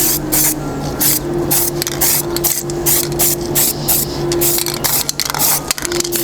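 Aerosol spray paint can hissing in short, quick bursts, about two a second, laying light coats onto a metal PC case. A steady low hum runs underneath.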